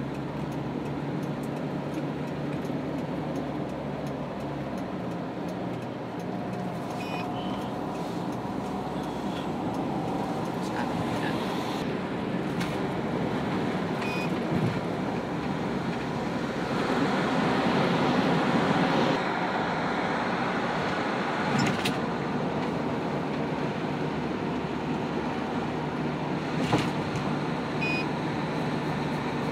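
Car driving at speed, heard from inside the cabin: a steady hum of engine and tyre noise that swells for a couple of seconds past the middle. A few short faint high beeps and a couple of clicks sound over it.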